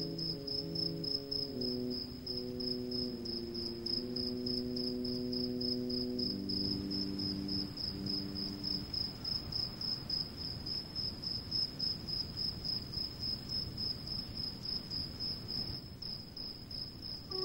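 A cricket chirping in a steady, evenly pulsed high trill. Slow, held low musical notes sound with it over roughly the first half, then stop.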